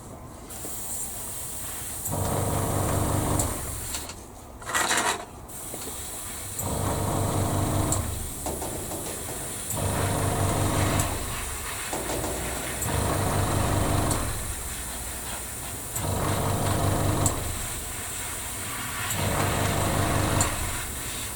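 Airbrush spraying primer at about 12 psi, a steady hiss of air and paint. A motor hum comes and goes in spells of a second or so, about every three seconds, with a short louder blast of air about five seconds in.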